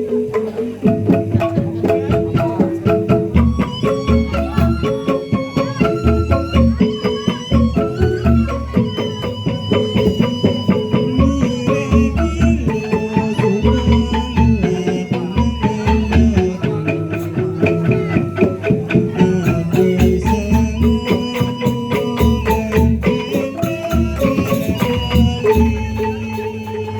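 Traditional folk music: a percussion-driven ensemble playing a busy, fast melody over steady drumming.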